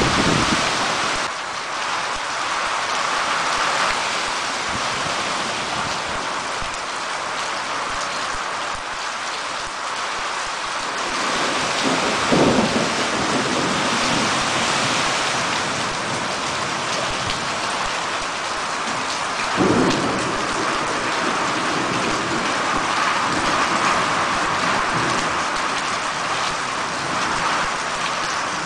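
Heavy rain falling steadily during a thunderstorm, with thunder rumbling twice, about twelve seconds in and again about twenty seconds in.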